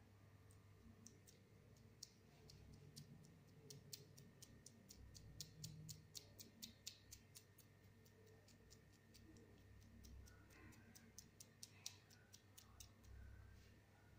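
Faint, sharp, irregularly spaced clicks, a few a second, that thin out near the end, over a low steady hum.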